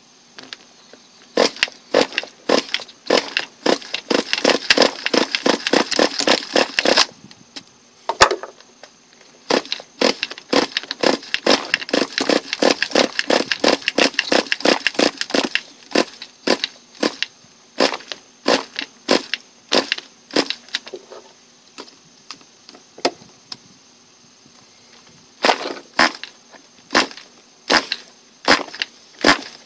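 Small nitro glow engine of a Redcat Shockwave RC buggy being turned over repeatedly in attempts to start it, without catching: runs of rapid clicking and popping lasting a few seconds, with sparser single clicks between them.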